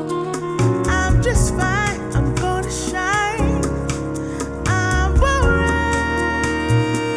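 Recorded music: a song played back through headphones and captured by microphones at the ear cups, with a steady bass and beat under a melody line whose notes bend and waver in pitch.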